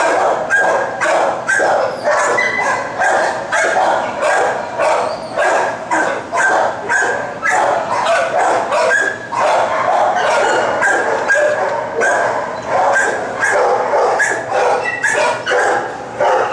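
Many shelter dogs barking in their kennels without a break, overlapping barks and yips several a second.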